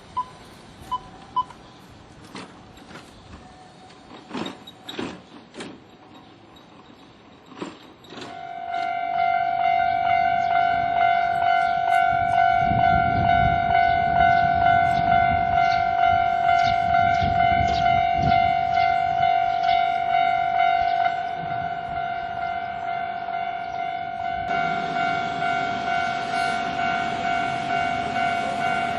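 Japanese level-crossing warning bell starts about eight seconds in: a loud, repeating electronic clang that goes on ringing steadily. Near the end, the noise of an approaching train rises beneath it.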